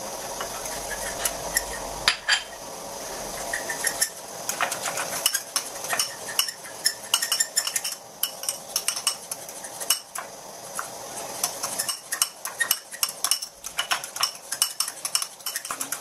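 A spoon stirring and clinking against a ceramic bowl in quick runs of clicks, beating a thin flour-and-milk mixture for béchamel sauce.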